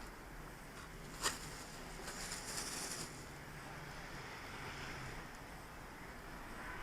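Quiet handling noises from hand work on a fibreglass-and-resin shell repair: one sharp click about a second in, then a brief scratchy rustle, over a low steady hum.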